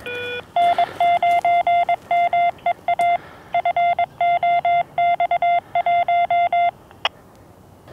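Fox-hunt hidden transmitter sending its Morse code identification: a steady single-pitch tone keyed on and off in short and long beeps for about six seconds. It follows one short lower beep at the start, and a single click comes about seven seconds in.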